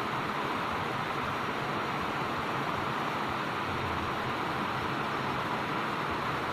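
Steady rush of water spilling over a small concrete weir into a stream.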